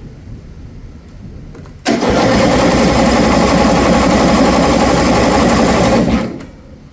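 Electric starter cranking the John Deere Z225 zero-turn mower's engine, starting abruptly about two seconds in and stopping after about four seconds without the engine catching, to check for spark with a spark tester on the plug lead.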